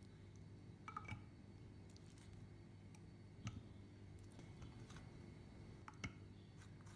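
Faint clicks and soft taps of a metal spoon scooping avocado flesh and dropping it into a plastic food chopper bowl, with a few sharper knocks about a second in, midway and near the end, over a faint steady hum.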